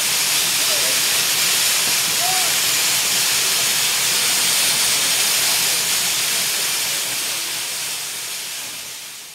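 Steam locomotive 7470 venting steam: a loud, steady hiss that dies away over the last couple of seconds.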